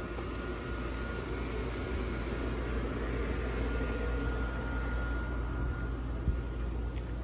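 Steady low rumble of outdoor city ambience, with a faint thin steady tone in the background and one soft knock about six seconds in.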